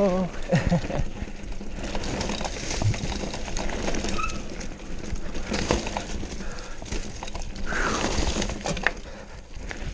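Mountain bike ridden fast down a dirt singletrack: tyres crunching over dirt and roots, and the bike rattling and clattering with each bump, over a steady rushing noise.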